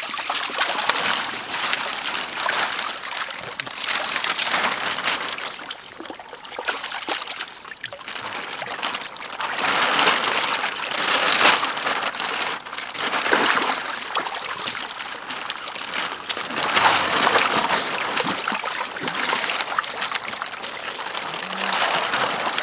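Water splashing and sloshing in irregular surges, full of small crackling splashes, as koi are handled in water during a pond harvest.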